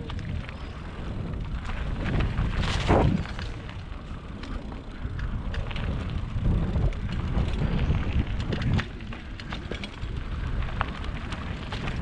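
A mountain bike running down a dirt flow trail: wind buffeting the microphone and the tyres and frame rattling over the ground, with scattered clicks and knocks. A louder burst of noise comes about three seconds in.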